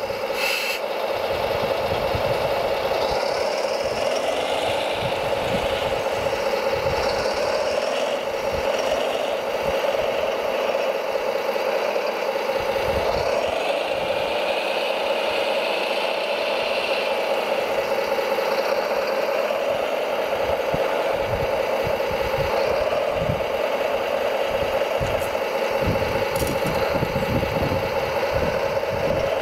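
Radio-controlled model construction machine working: a steady mechanical drone with a motor whine that rises and falls now and then, over irregular rattling that grows busier near the end.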